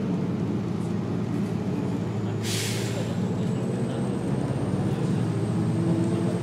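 Diesel engine of a 1996–97 MCI Novabus Classic transit bus running steadily, heard from inside the bus. About two and a half seconds in, a short hiss of compressed air bursts from the bus's air brake system. It is followed by a faint high whine, and the engine grows a little louder near the end.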